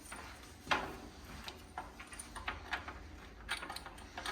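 Irregular light clicks and taps of metal bolts and cot frame parts being handled as the bolts are fitted and turned in finger tight.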